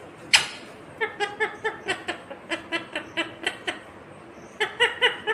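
Indian ringneck parakeet calling: one harsh screech about a third of a second in, then a quick run of short chirping notes, about four a second, and three more notes near the end.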